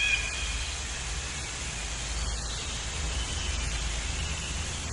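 Outdoor nature ambience: a steady low rumble with faint, thin bird calls.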